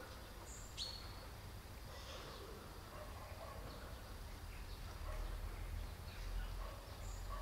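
Outdoor ambience: a bird chirping briefly, about a second in and again near the end, over a low rumble that grows louder about five seconds in.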